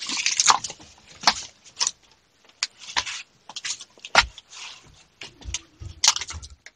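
Footsteps crunching and scuffing over rubble and loose debris, an irregular run of sharp crunches and knocks with short pauses between them.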